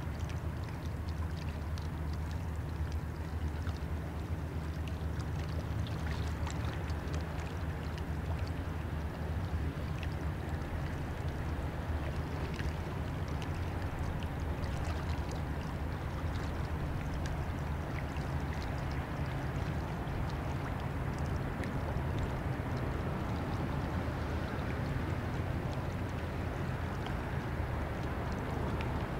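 Diesel engine of a passing inland tanker barge running with a steady low drone that weakens in the second half, over a steady wash of river water.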